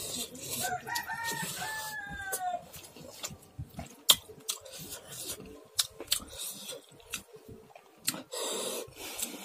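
A rooster crows once: a few short notes, then a long falling one, from about half a second to under three seconds in. Throughout, sharp wet clicks and smacks come from eating rice and dal by hand off a steel plate.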